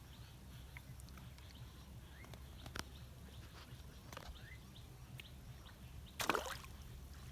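Outdoor ambience with a steady low hum and scattered small bird chirps and clicks, then a short loud burst of noise about six seconds in.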